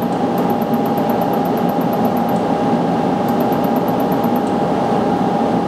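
Sunstone Orion LZR 100 benchtop laser welder firing pulses at porosity in a white gold ring casting: two runs of rapid high ticks, about ten a second, over a steady fan-like hum with a constant tone.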